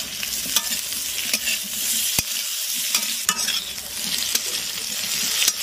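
Boiled potato cubes sizzling as they fry in a steel kadhai, stirred with a steel spatula that scrapes the pan and knocks against it with several sharp clicks.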